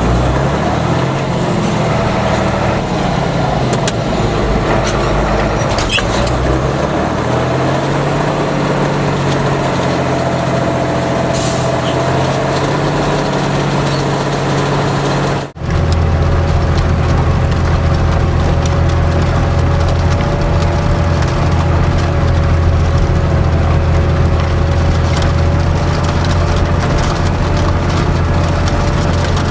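Fendt Favorit 611 LSA Turbomatik's six-cylinder turbo diesel running hard while ploughing with a four-furrow plough; the engine speed rises and falls in the first half, then after a sudden cut about halfway through it holds a steady, deep drone under load.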